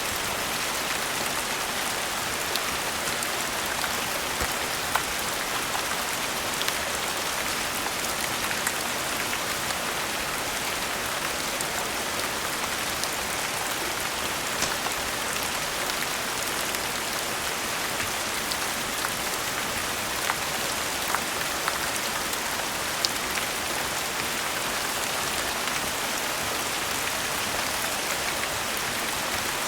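Steady rain falling, a continuous hiss with a few scattered sharp clicks a few seconds apart.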